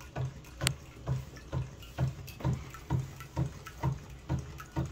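1/4-scale model Rider-Ericsson hot-air pumping engine running slowly and steadily on a very small flame, a soft low knock with a click on each stroke about twice a second, with watery splashing from its pump.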